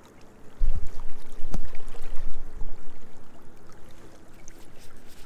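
Low rumbling buffets on the camera's microphone for about two seconds, starting under a second in, with one sharp knock in the middle, over a steady wash of water lapping.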